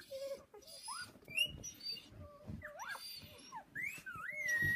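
Newborn puppies squealing and whining: many short, high calls that glide up and down in pitch, with one longer held call near the end.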